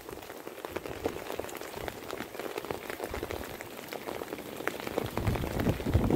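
Rain falling, a steady patter with many scattered drop ticks. A low rumble rises near the end.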